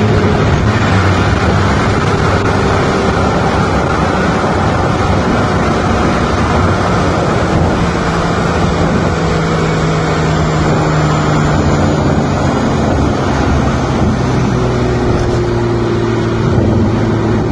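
Porsche 911 Carrera 4 GTS flat-six exhaust note while driving at a fairly steady pace, under a heavy rush of wind and road noise. The engine pitch climbs a little about eight seconds in and shifts gently again near the end.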